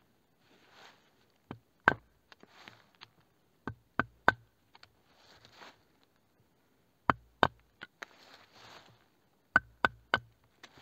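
A knife chopping into a wooden pole: sharp knocks in quick groups of two or three, about four groups, with soft scraping between them.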